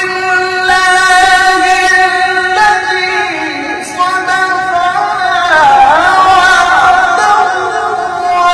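A man's voice in melodic Quran recitation (tilawah), drawing out long melismatic notes. The pitch holds steady at first, slides down around the middle, then winds up and down in ornamental turns.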